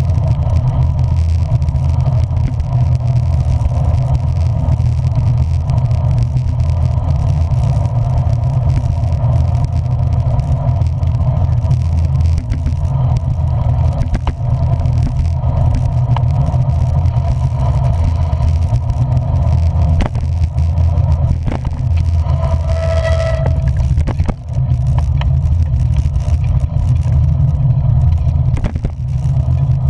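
Steady low rumble of a vehicle on the move. About three quarters of the way through, a short high tone sounds for about a second.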